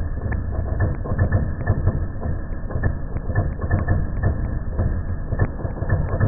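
Test rig for a 3D-printed RC model landing gear: a rough-surface drum spinning under the gear's wheels. It gives a rapid, irregular rattling and knocking over a low rumble as the wheels bounce on the bumps and the rubber-ring-damped gear leg takes the shocks, an endurance test of the gear.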